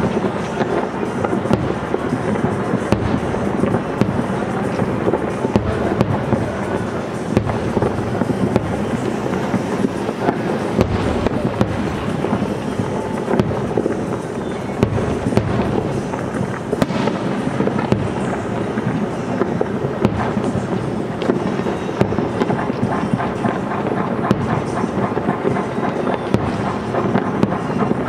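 Aerial firework shells bursting in rapid succession: a dense, continuous run of bangs and crackles with no pauses.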